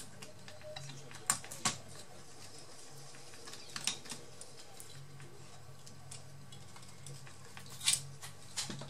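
Scattered small sharp clicks and taps of a screwdriver and loosened metal parts as a laptop's cooling fan and copper heat-pipe heatsink are unscrewed and lifted out, about five in all, over a low steady hum.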